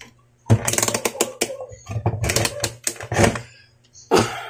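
A quick run of clicks and clattering as the multimeter, its test leads and the iron's plug are handled on a workbench, over a faint steady low hum.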